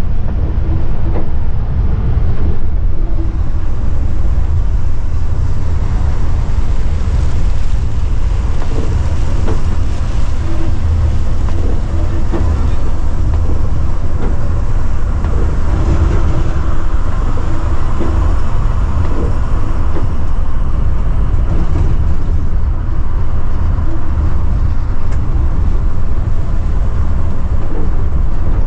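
Steady low rumble of a Scania multi-axle coach cruising at speed, heard from the driver's cabin: engine drone mixed with tyre and road noise on a wet road.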